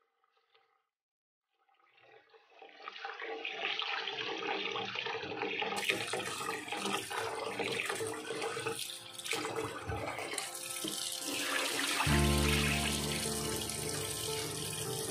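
Tap water running into a steel pot of glutinous rice while a hand swishes the grains to wash them, starting about two seconds in. Background music with a steady low bass comes in about twelve seconds in.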